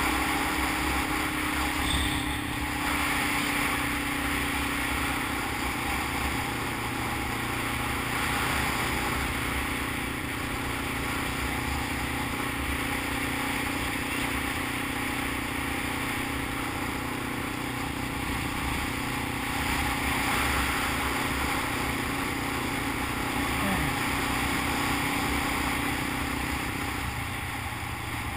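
Motorcycle engine running at a steady cruising speed, with heavy wind noise on the microphone. The engine note drops away about a second before the end.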